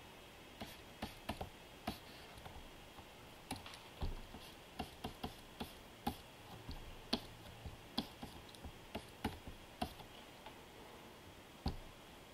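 Plastic stylus nib tapping and dabbing on the glass of a Wacom Cintiq pen display during brushwork: light, irregular clicks, some in quick runs, with one duller knock about four seconds in.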